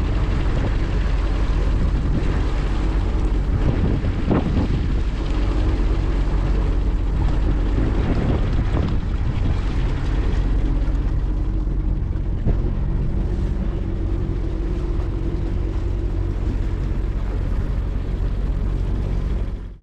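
A small boat's outboard motor running steadily, driving the boat along, as an even drone.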